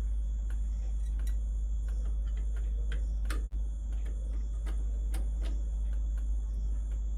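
Scattered small clicks and ticks of a screwdriver and cable being worked into an air conditioner's terminal block, over a steady low hum.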